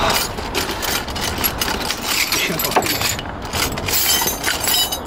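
Quick, irregular metallic clicks and clinks of hand tools working the bottom bolt of a rear shock absorber, a nut that is proving hard to get off.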